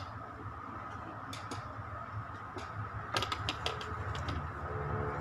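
Portable sewing machine being set down and handled on a table: a series of light clicks and knocks, most of them together about three seconds in, over a steady low hum.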